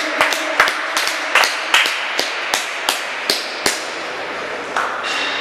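Audience applauding, with one person's sharp claps close by at about three a second that stop about two-thirds of the way through.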